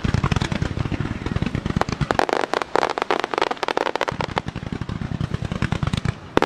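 Fireworks barrage from a digital starmine: shells launching and bursting in rapid fire, many sharp bangs a second packed close together.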